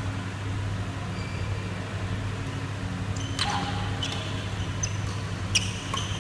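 Doubles badminton rally: from about three and a half seconds in, a few sharp racket hits on the shuttlecock, with short squeaks of shoes on the court floor. The loudest hit comes near the end. A steady low hum runs underneath.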